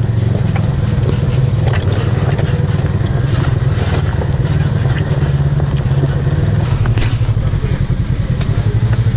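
Side-by-side UTV engine running steadily under light throttle, a loud, even drone with a fast pulsing beat; the sound changes in character about seven seconds in.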